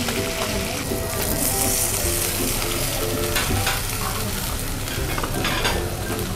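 Tomahawk steak sizzling in hot oil on a flat-top griddle, a steady frying hiss, with background music playing under it.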